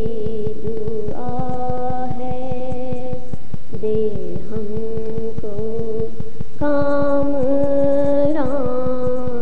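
A wordless vocal interlude in a sung Urdu nazm: voices humming long held notes, moving to a new pitch every second or two.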